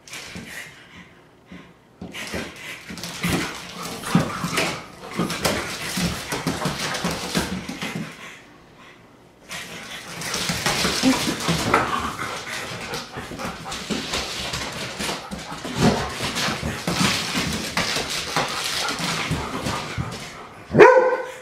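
An Irish setter and a French bulldog play-fighting on a hardwood floor: a long stretch of rough, noisy dog sounds and scuffling, broken by a short lull about eight seconds in, with a loud bark near the end.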